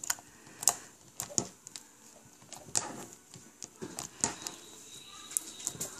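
Glossy slime being pressed, folded and poked by fingers, giving off irregular sharp wet clicks and pops about once a second as air pockets are squeezed out.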